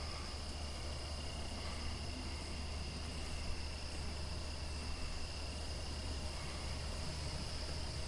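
Steady chorus of night insects, a continuous high trilling, over a low steady hum.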